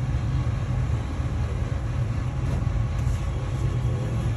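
Steady low rumble, strongest in the deep bass, running on without change.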